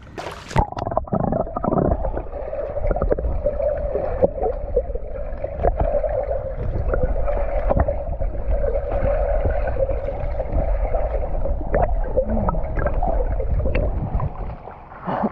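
Muffled underwater water noise picked up by a GoPro in its waterproof housing as a swimmer dips it below the surface of a spring: a splash just at the start, then a steady low rumble and hum with scattered bubbling clicks, easing off shortly before the end as the camera comes back up.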